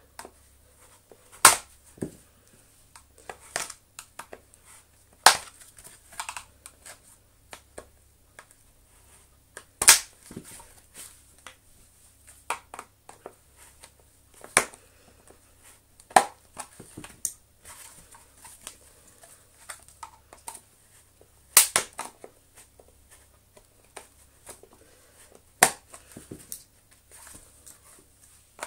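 Plastic clips on a Dyson DC33 cyclone assembly being prised apart with a flat-bladed screwdriver. Sharp plastic snaps and clicks come at irregular intervals, several seconds apart, with quieter scraping and tapping of the blade against the plastic between them.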